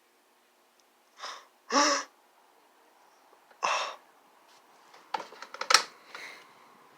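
A person's short, breathy vocal outbursts: three in quick succession, the second voiced and rising in pitch. They are followed by a run of sharp clicks and rattles.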